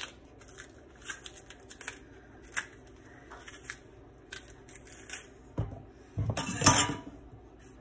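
Kitchen knife cutting and prying the thick skin off a green plantain: short, scattered scrapes and tearing sounds. A louder, longer scrape comes near the end.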